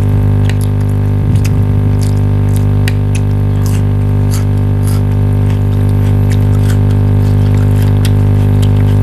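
A steady low hum with many evenly spaced overtones that never changes, with small scattered clicks and smacks of people eating on top.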